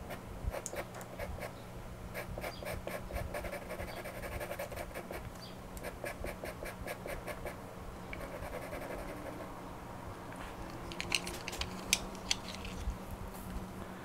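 Pastel pencil scratching on pastel paper in quick, repeated short strokes, the artist shading in the dark tip of a drawn beak. A few sharper clicks come near the end.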